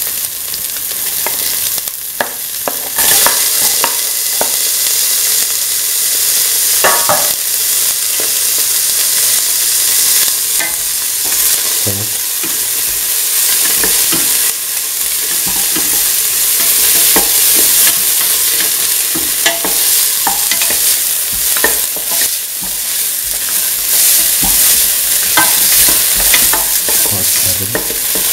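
Chopped onion and shallots sizzling in hot oil in a stainless steel pan, a steady frying hiss. The pieces are being stirred, with irregular scrapes and clicks of the utensil against the pan.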